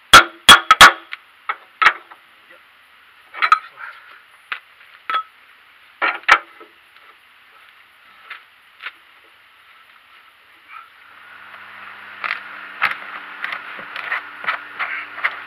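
Sharp metallic clicks of a spanner on the oil drain plug of a YaMZ-238 diesel's sump as the plug is worked loose, then scattered single knocks. Near the end a steady hiss and faint low hum come in with a quick run of clicks and knocks.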